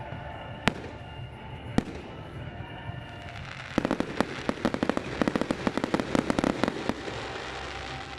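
Aerial firework shells bursting: two sharp single bangs in the first two seconds, then about four seconds in, a dense run of rapid crackling pops lasting about three seconds.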